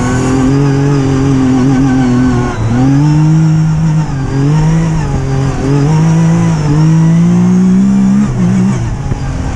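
Yamaha YXZ1000R's three-cylinder engine pulling hard, its revs climbing and then dipping back several times as it is driven through the sand.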